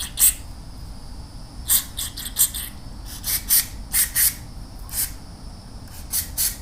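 Short blasts of aerosol carburetor and throttle body cleaner sprayed into a clogged scooter carburetor's jets and passages, mostly in quick pairs with brief pauses between.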